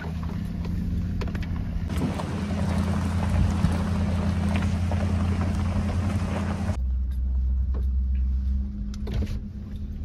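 Pickup truck's engine running steadily under load in four-wheel-drive low, climbing a slick, steep muddy hill, with scattered knocks and rattles from the truck on the rough track. About seven seconds in, the engine note changes abruptly to a lower one.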